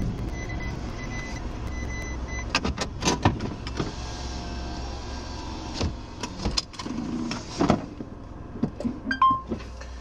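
Car cabin while the car comes to a stop: steady engine and road hum, with a high tone beeping on and off for the first couple of seconds, then a series of clicks and knocks.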